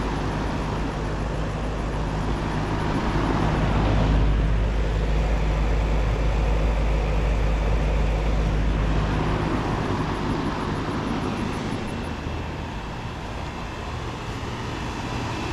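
A 2005 Centurion central air conditioner's outdoor unit running, with its Bristol compressor. A steady low compressor hum sits under the rushing of the condenser fan. The deepest part of the hum weakens about two thirds of the way through.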